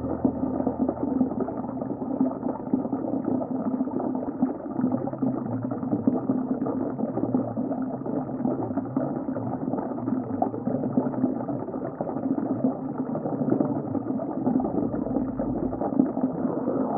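Aquarium water bubbling steadily, a muffled bubbling under a steady low hum.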